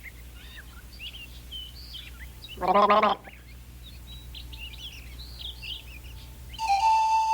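Small songbird chirping and twittering faintly in short, scattered phrases. About two and a half seconds in, a voice gives a brief half-second note, and near the end a loud, steady, held whistled note begins.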